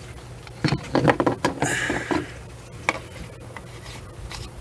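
A few short knocks and clatters of things being handled, a cluster about a second in and a single knock near three seconds, over a faint steady low hum.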